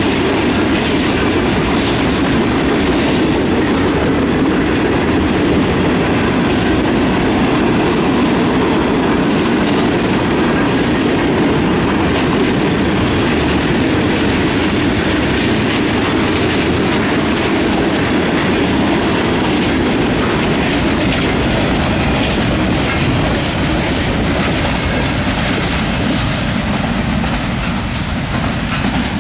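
Freight train cars rolling past close by: a steady rumble with a dense clatter of wheels over rail joints, easing slightly near the end.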